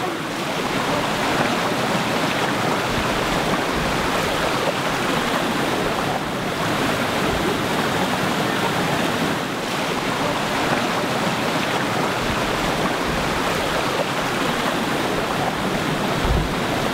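Rushing stream water tumbling over rocks and small cascades, a steady hiss with no pauses.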